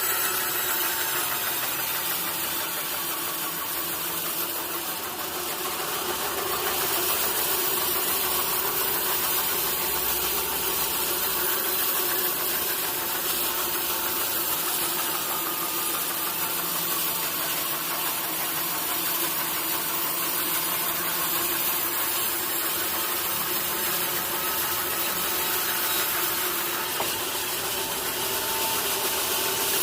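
Sawmill machinery running steadily, a continuous engine-like drone with dense mechanical noise and no breaks.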